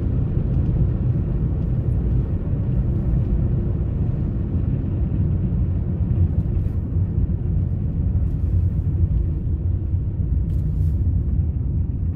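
Car on the move, heard from inside the cabin: a steady low rumble of road and engine noise.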